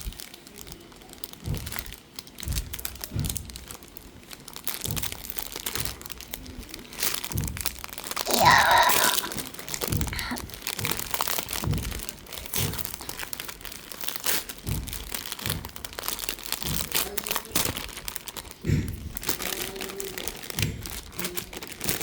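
Plastic packaging of a modelling-clay kit crinkling and rustling as it is handled and opened, with scattered clicks and knocks, and one louder, brief sound a little over a third of the way through.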